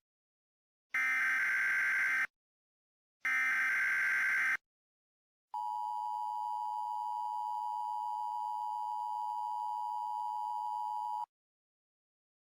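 Emergency Alert System tones: two short bursts of the SAME digital header, each a harsh warbling data screech of about a second, followed about a second later by the two-tone EAS attention signal, a steady dual-pitched tone held about six seconds and then cut off. Together they signal the start of an emergency alert broadcast.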